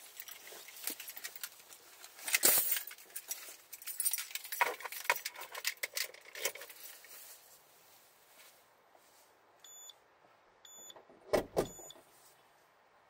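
Keys jangling and rustling handling noises inside a car, with scattered clicks. Near the end, three short high electronic beeps about a second apart, the third with a dull thump.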